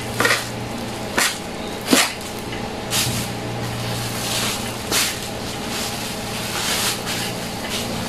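Plastic bags being handled: rustling with a handful of short, sharp crinkles, over a steady low hum.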